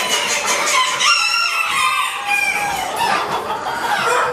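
Many bantam chickens crowing and clucking at once, the calls overlapping without a break.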